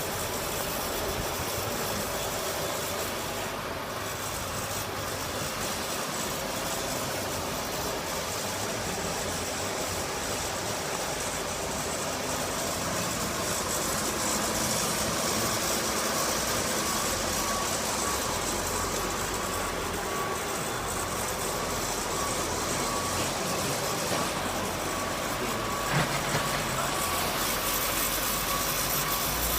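Cement mixer truck running steadily, a constant engine noise with a steady hum, with a single sharp knock near the end.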